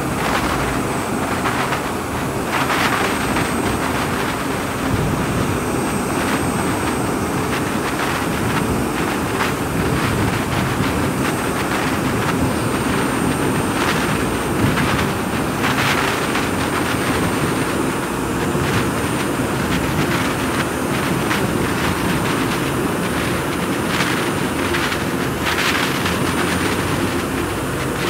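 Steady rushing, rumbling roar of a sound effect for very high-speed flight, with brief louder surges now and then.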